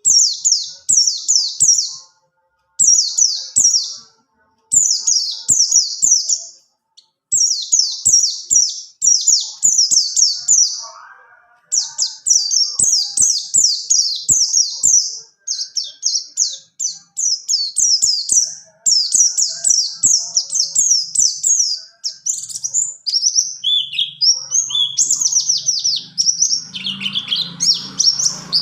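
Pleci buxtoni white-eye singing. Its song is long phrases of rapid, high, downward-slurred chirps run together into trills, broken by short pauses. Lower notes come in near the end.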